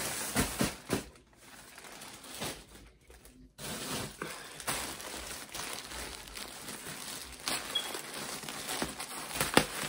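Plastic poly mailer bag crinkling and rustling as it is handled and opened, with two short breaks in the sound.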